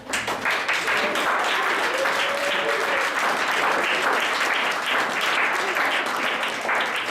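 Group of people applauding, dense clapping that breaks out suddenly and keeps up steadily, with a voice or two faintly among it.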